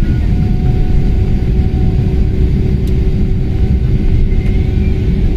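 Jet airliner's engines and cabin rumble heard from inside the cabin as the plane rolls along the runway: a loud, steady low rumble with a faint steady whine above it.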